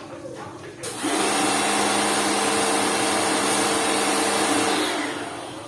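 Lakoni Laguna 70 electric pressure washer running with its water jet spraying. It starts about a second in, runs steadily, and cuts off near the end.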